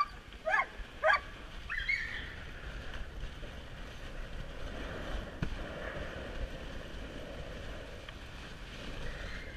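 A few short, high yelps from excited sled dogs in the first second, then a steady hiss of the sled's runners gliding over snow, with wind on the microphone as the husky team runs.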